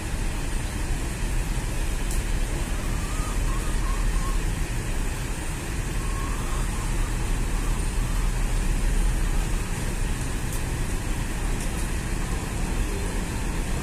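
Steady low diesel rumble of a large coach bus moving slowly at walking pace.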